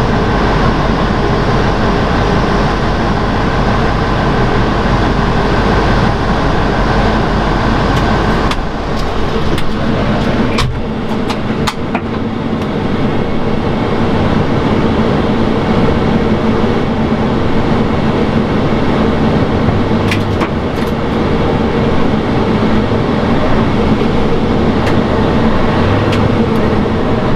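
Jet airliner engines running at taxi power as the aircraft rolls by: a loud, steady engine noise with a held hum. About nine seconds in the sound changes, and from there an Airbus A340-600's four jet engines are heard close by, mixed with the push-back tug's idling engine.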